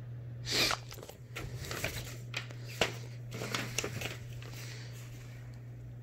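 Paper instruction manual being handled and its pages turned: a loud rustling swish about half a second in, then a string of crinkles and sharp paper snaps that die away after about four seconds.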